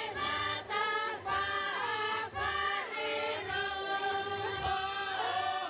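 A group of voices chanting together in several parts: long held notes that slide between pitches.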